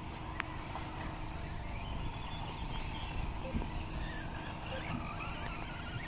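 Radio-controlled off-road cars running on a turf track: a faint whine of their motors rises and falls, under a low steady rumble.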